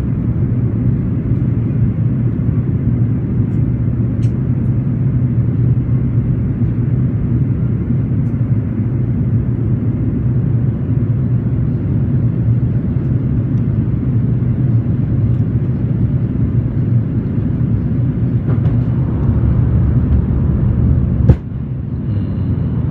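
Cabin noise of an Airbus A330 descending to land with its flaps extended: a steady, deep rumble of engines and airflow. A single sharp click comes about 21 seconds in, followed by a brief dip in the noise.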